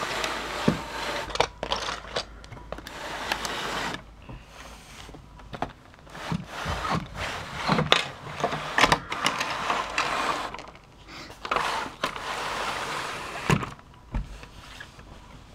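Plastic LEGO parts clicking, knocking and scraping as the brick-built station is handled and opened up, with rustling in several stretches.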